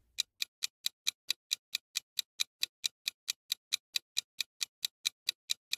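Ticking-clock sound effect marking a quiz countdown timer: fast, even ticks, about four or five a second, counting down the time left to answer.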